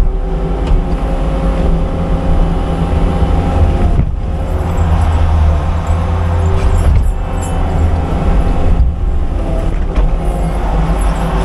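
Cat 299D3 compact track loader's diesel engine running steadily, with a couple of brief drops in the sound partway through.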